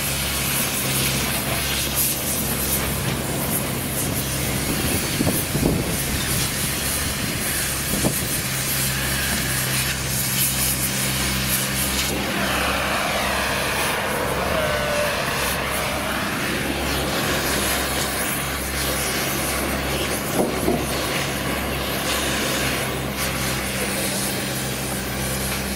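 Gas cutting torch hissing steadily as it cuts through a steel rail, over a steady low engine drone; a passing vehicle swells louder about halfway through.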